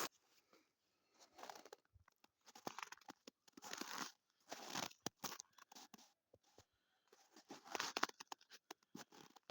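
Footsteps crunching in snow, an uneven run of soft crunches about one a second.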